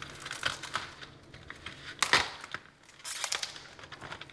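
Outer leaves being torn off a head of green cabbage by hand: crisp crackling and snapping of the stiff leaves, with one loud crack about two seconds in.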